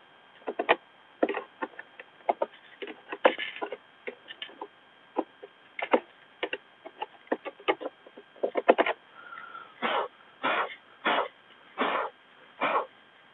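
Hands clearing wood chips and debris out of an electric garden shredder's opened cutting chamber. Scattered clicks, knocks and rustles of plastic housing and woody bits give way near the end to five short rasping strokes about half a second apart. The shredder is not running.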